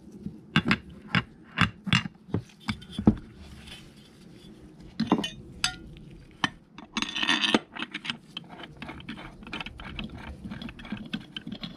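Steel and brass parts clinking and knocking as a clutch-spring compressor tool is set onto a transmission clutch drum and its threaded rod is fitted. A brief scrape comes about seven seconds in.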